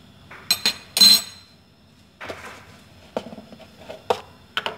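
Metal kitchenware clinking and knocking: a few sharp clinks about half a second to a second in, the loudest ringing briefly, then a short rustle and lighter clicks.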